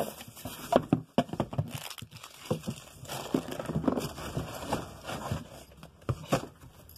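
Plastic bags crinkling and rustling as products are picked up and cleared off a table, with sharp knocks and clicks of items being handled.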